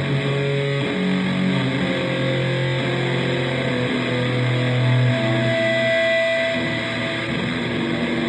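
Improvised electric guitar drone: long held notes that change pitch every second or so, over a steady noisy wash.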